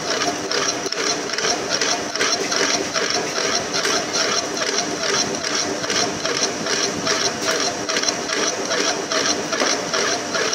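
Large lathe machining metal: a rhythmic scraping beat of about three to four strokes a second over a steady machine hum.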